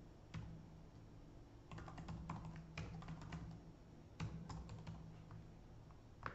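Faint typing on a computer keyboard: short runs of keystrokes with pauses between them, and one sharper key or mouse click near the end.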